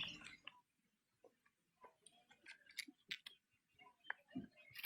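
Near silence, broken by a few faint, scattered clicks in the second half.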